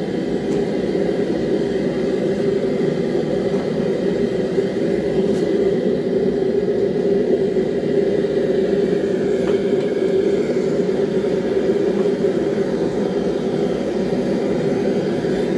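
Gas forge running, its burner flame making a steady, unbroken rushing noise.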